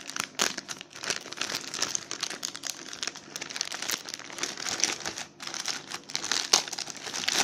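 Plastic delivery packaging crinkling and rustling as it is handled and torn open, in dense irregular crackles.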